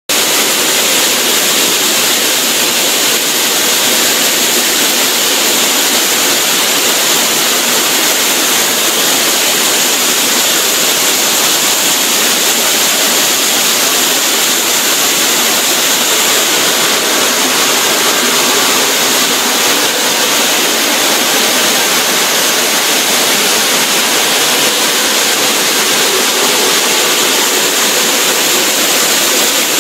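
QSQ-2200 multi-blade stone cutting machine, its stack of segmented circular saw blades spinning and cutting a stone block under cooling water spray. It makes a loud, steady hissing rush that does not change.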